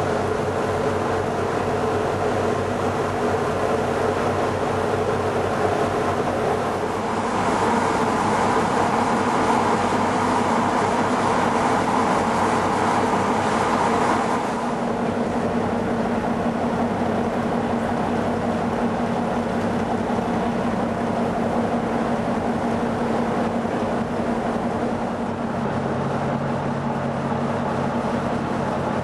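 A car ferry's engines and machinery running with a steady, many-toned hum under a rushing noise, heard from the open deck. The hum grows louder and brighter about seven seconds in and drops back about halfway through.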